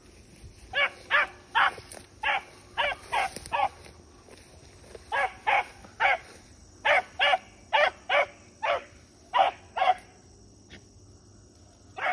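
A rabbit hound giving short, repeated barks, two to three a second, in two runs broken by a pause of about a second and a half; the barking stops about ten seconds in. It is the hound's cry while running a rabbit's track through the brush.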